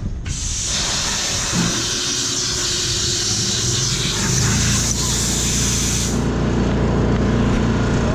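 A blast of air hissing sharply for about six seconds and then cutting off, blowing dust out of a UPS. A low, steady machine rumble comes in about halfway through and keeps running after the hiss stops.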